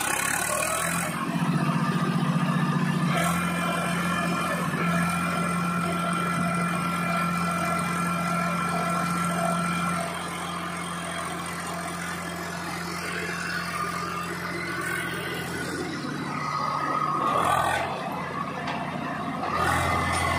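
Swaraj 744 FE tractor's three-cylinder diesel engine running steadily under load as the tractor drives through mud, loudest in the first few seconds.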